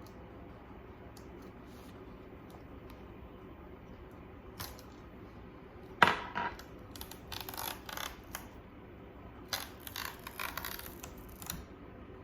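Clicks, taps and rattles of small hard parts being handled on a laptop's case during a RAM upgrade, with one sharp knock about six seconds in followed by two bursts of rattling clicks.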